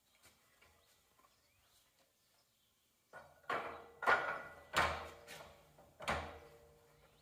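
Heavy steel parts clanking together at a hydraulic shop press as the bull gear and press blocks are set in place: five or six irregular metal knocks, each leaving a short ringing tone, starting about three seconds in.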